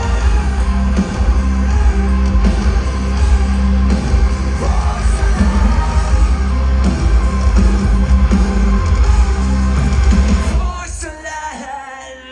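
Live metalcore band playing loudly, with heavy bass, guitars and yelled vocals; the music cuts off about ten and a half seconds in and the sound drops to a much quieter tail.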